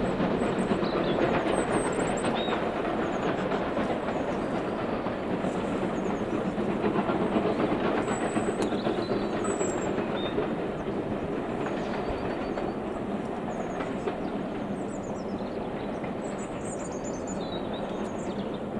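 Steam train hauled by USA S160 2-8-0 locomotives working hard up the line, a steady mix of exhaust and running noise that slowly fades as it draws away. Small birds chirp now and then.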